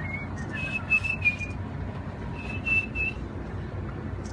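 Bald eagle calling: short, thin, high whistled notes in two quick runs of about three.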